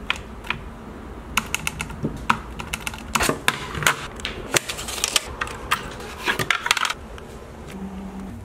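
Hands handling a digital kitchen scale and a plastic blister pack of CR2032 lithium coin-cell batteries: a run of sharp, irregular clicks and taps. A short low hum comes near the end.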